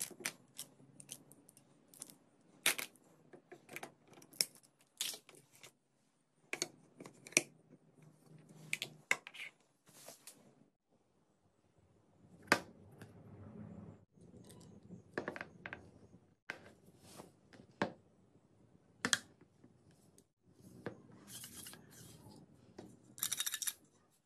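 Small plastic and wooden parts being handled and fitted on a PVC-pipe slingshot: irregular light clicks and taps, with a short quieter pause around the middle.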